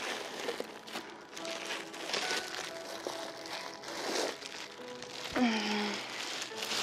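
Plastic wrapping crinkling and rustling as a wrapped telescope tube is handled and lifted out of its case, over soft background music.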